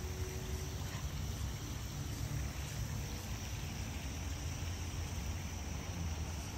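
Steady outdoor background noise: a constant low rumble under a faint even hiss, with no distinct events.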